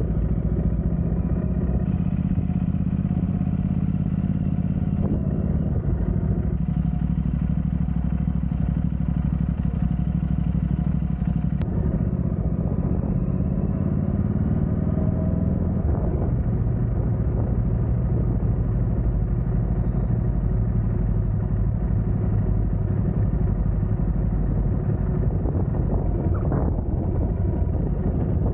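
Engine of a moving road vehicle running steadily on the road, its pitch drifting up and down a little with speed.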